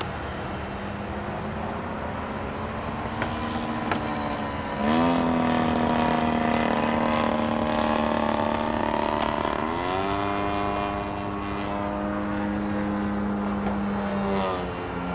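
Twin electric ducted fans of a small RC jet whining steadily in flight, their pitch sweeping up as the throttle is opened about five seconds in and again about ten seconds in. There is a low rumble of wind on the microphone underneath.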